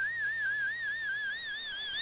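Shortwave radio receiver audio of an MFSK picture transmission from Shortwave Radiogram being decoded by Fldigi. A single high tone warbles quickly up and down, about six times a second, as the picture's pixels are sent, over a faint steady hum.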